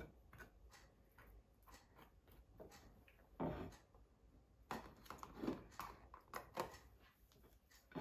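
Table knife scraping across slices of toast and tapping the plate while spreading: faint, irregular scrapes and light clicks, a few louder ones about halfway through.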